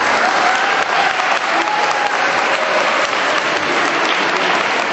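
Audience applauding: dense, steady clapping from a crowd in a large hall.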